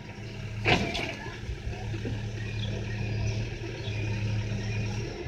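Backhoe loader's diesel engine running with a steady low drone as the front bucket works into the earth, with one short sharp knock about a second in.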